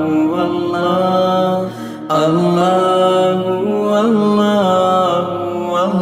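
Background music: a naat, devotional Islamic song sung as a chant, with long held notes that slide between pitches and a short break about two seconds in.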